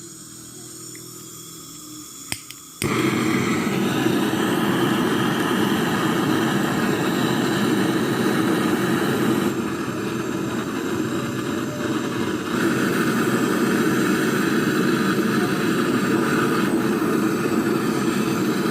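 A gas brazing torch for refrigerator copper pipe: two clicks, then the flame catches with a sudden start and burns with a loud, steady rushing noise.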